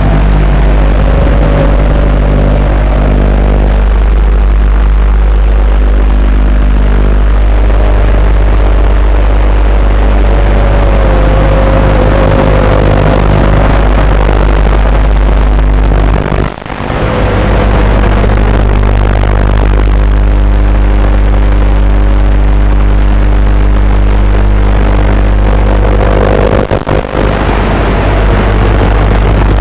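Arfun 90 mm FPV racing quadcopter's motors heard through its onboard video-transmitter microphone: a loud, steady electrical buzz with a whine that wavers in pitch as the throttle changes. The sound cuts out briefly about sixteen seconds in, and again in a few short gaps near the end.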